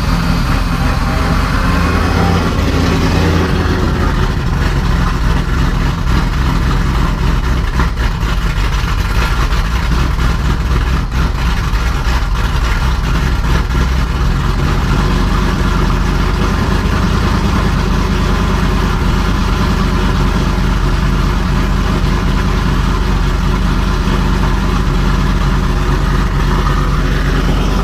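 2002 Ford SVT Lightning's supercharged 5.4-litre V8, fitted with built heads and cam, running at idle on its first start after a rebuild. A higher, busier note in the first few seconds settles into a steady idle.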